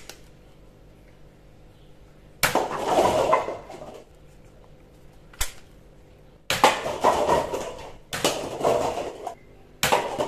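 A toy foam-dart bow launcher snaps sharply as it fires, twice. Light paper cups clatter and tumble down in bursts of about a second, four times.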